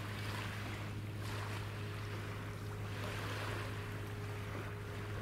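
Steady low drone of ship engines carrying across the water from the ferry and its attending tug, with soft washes of small waves swelling and fading about every second.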